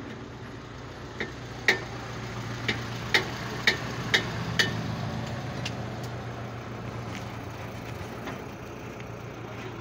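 An engine idling steadily in the background. About eight sharp clicks or taps come in the first six seconds, spaced roughly half a second apart.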